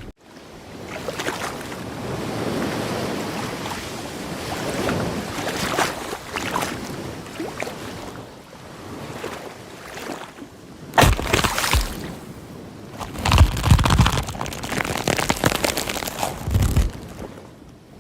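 Rushing water noise like waves washing in. From about eleven seconds in, a run of low thumps and knocks.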